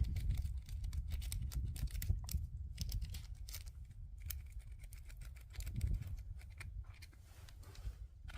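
Double-rake lock pick scrubbing in and out of a pin-tumbler deadbolt cylinder under a tension wrench: rapid, irregular small metallic clicks and scratching as the pins are raked, at varying speed.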